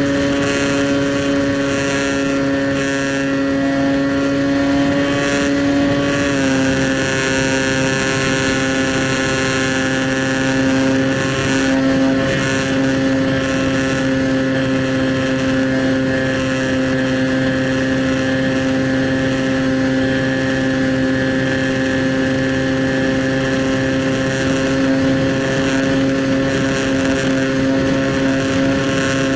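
Motor and propeller of an FPV Phantom radio-controlled airplane in flight, heard from the camera on board: a steady, loud pitched drone whose pitch steps down slightly about six seconds in, then holds.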